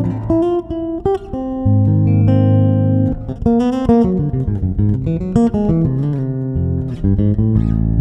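Cort A6 Plus FMMH six-string electric bass with Bartolini pickups, played fingerstyle: a melodic line of plucked notes, with some longer low notes and a fast run of short notes about halfway through.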